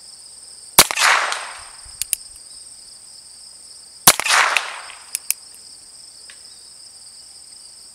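Two shots from a handheld revolver, about three seconds apart, each with a long trailing echo and followed about a second later by a pair of light clicks. A steady high insect buzz runs underneath.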